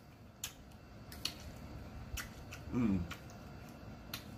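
A person eating salad with a fork: a few sharp, separate clicks of fork and mouth while chewing, and a brief voiced 'mm' sound about three seconds in.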